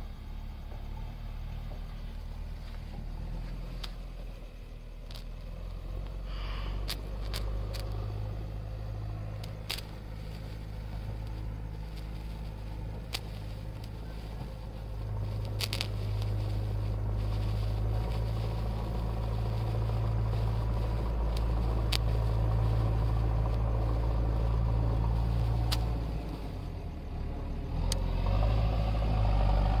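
Small children's sparkler burning with scattered sharp crackles, over a louder steady low rumble.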